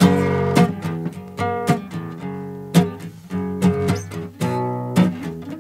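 Guitar strumming chords in the instrumental intro of a punk song, coming in abruptly at full level with a new chord struck every half second or so.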